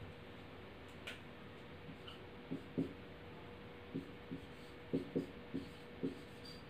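Marker writing on a whiteboard: a run of short, soft taps and strokes from about two and a half seconds in, over a faint steady hum. A low thump comes at the very start.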